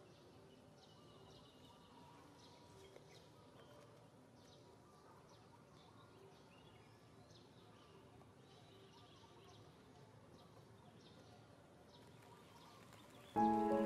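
Faint outdoor ambience with scattered faint high bird chirps. Background music comes in suddenly near the end.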